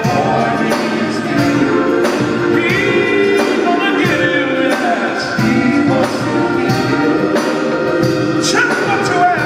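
Live gospel music: singing over a full band with a steady drum beat.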